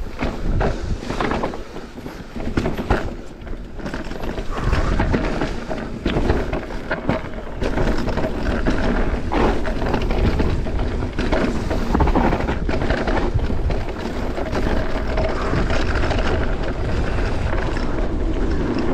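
Mountain bike descending a rough, rocky trail: wind rumbles on the microphone while the tyres grind over stones and the bike rattles with frequent knocks.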